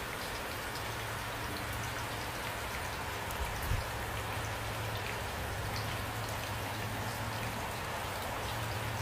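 Steady rain with many individual drops tapping, over a low steady hum. A couple of dull thumps stand out a little before four seconds in.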